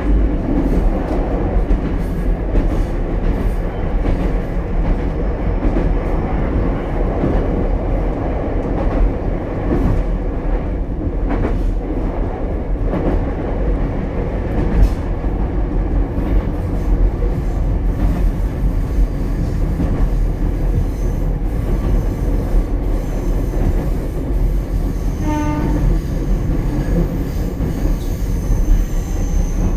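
Running sound inside Ichibata Electric Railway's 7000-series railcar 7001 at speed: a steady rumble of wheels on the rails with scattered clicks over the track. A short pitched tone sounds briefly about 25 seconds in.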